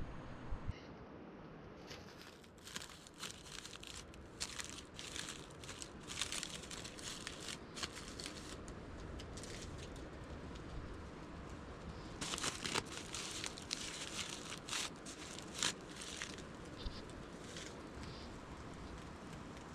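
Crinkling and rustling of a wrapping being handled, in irregular bursts, with a lull about ten seconds in.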